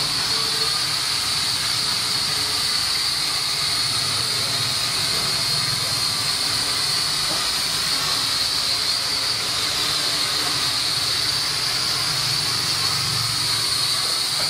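Small toy quadcopter's four motors and propellers whirring steadily in flight, an even high-pitched whine.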